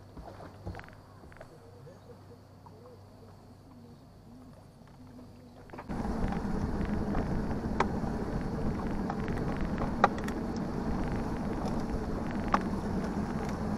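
A few light knocks against a quiet background, then about six seconds in a boat motor starts running steadily, a loud low rumble, as the boat moves across the water. A couple of sharp knocks sound over it.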